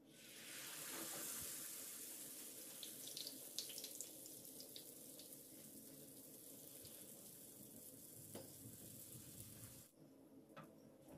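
Zalabia dough frying in hot oil in a pan, sizzling from the moment it is laid in, with a few sharp pops and crackles a few seconds in. The sizzle drops off briefly near the end.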